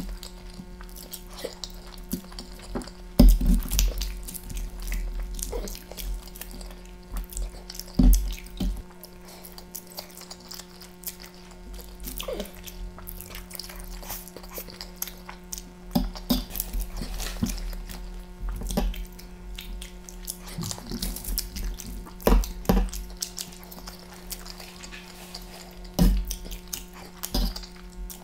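Close-miked wet eating: a mouthful of instant noodles chewed and slurped with lip smacks, and a metal fork clicking against the noodles and the foil-lined tray.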